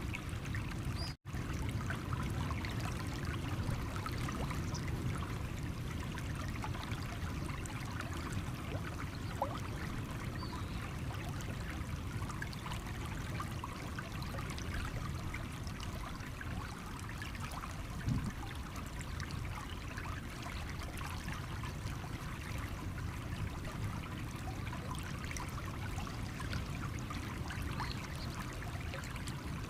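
Small stream running over stones, a steady trickling and babbling of water. The sound cuts out for an instant about a second in.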